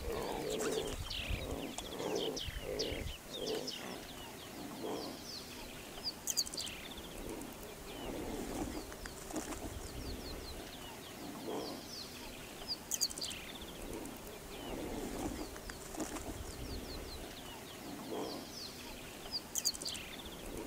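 Bushveld birdsong: a dove cooing in short series of low notes every few seconds, with small birds chirping high and fast around it.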